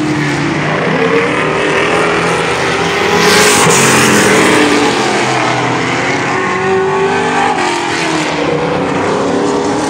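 Race car engines running at speed around a short oval, several at once, their pitch rising and falling as the cars pass and go through the turns.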